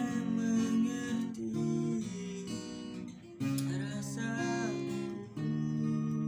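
Acoustic guitar strumming chords in a song accompaniment, the chords changing every second or two, with a fresh strum after a brief dip about three seconds in.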